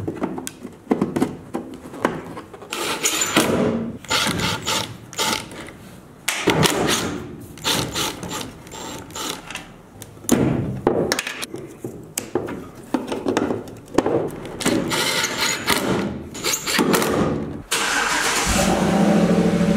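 Knocks and clicks from handling and fitting a pickup's tail-light housing and bulb wiring. Near the end, a Chevrolet Silverado's engine runs steadily at idle.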